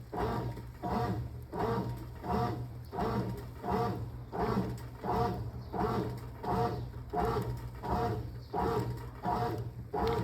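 Brastemp Clean top-loading washing machine agitating a linen curtain in water on a delicate wash: a steady back-and-forth swish about every 0.7 s, over a constant low motor hum.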